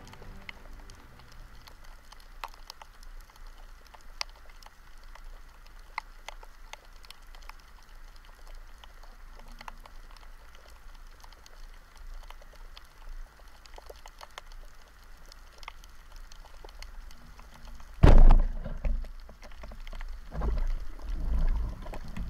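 Underwater sound: a faint hiss with scattered sharp clicks, then about eighteen seconds in a sudden loud thud as a rubber-band speargun is fired, followed by several loud bursts of rushing and knocking noise.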